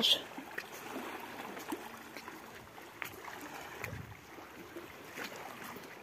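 Small sea waves lapping and washing against shore rocks, a steady watery hiss, with a few faint taps.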